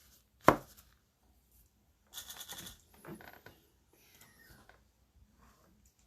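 Handling noises on a tabletop: one sharp knock about half a second in, then a short crackly rattle about two seconds in, followed by scattered small rustles and clicks.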